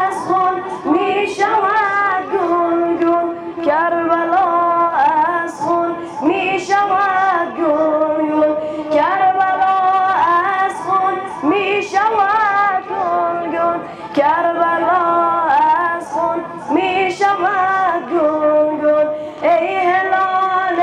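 A boy's high voice chanting a Persian nowheh, a Shia mourning lament, unaccompanied into a microphone, in long, gliding melodic phrases.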